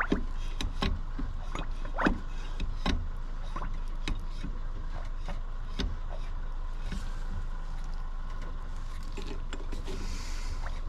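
Bleeding a brake system: irregular sharp clicks and knocks of the tools and parts being worked, over a steady hum, with a short hiss near the end.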